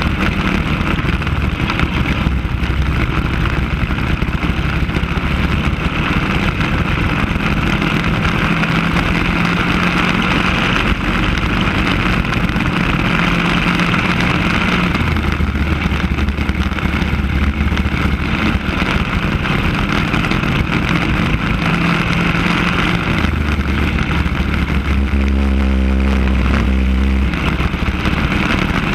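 Racing kart engine running hard, heard close up from the kart itself; its note drops and picks up again as the kart slows for corners and accelerates out, most clearly about three-quarters of the way through.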